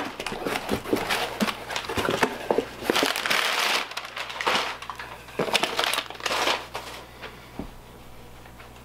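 Cardboard shipping box being opened and crumpled kraft packing paper pulled out: irregular crinkling, rustling and crackling of paper and cardboard, which dies down for the last couple of seconds.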